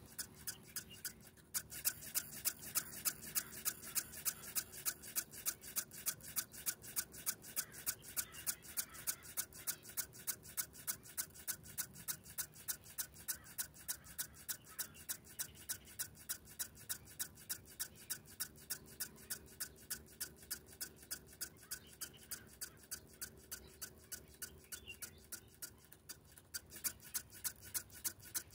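JR S8477 SS Game Changer helicopter servos stepping in rapid, evenly spaced ticks, several a second, which start about a second and a half in. This is the follower servo working its way up one degree at a time to match the master servo's travel during PWM synchronization.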